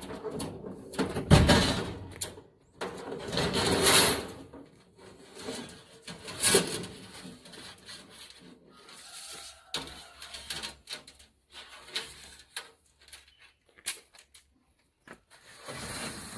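Irregular knocks, clanks and scraping bursts, the loudest about a second and a half in and again about four seconds in.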